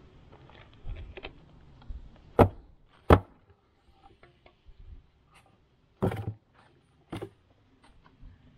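A few sharp knocks and thuds as an insulated beehive cover is lifted off and handled, the loudest about three seconds in.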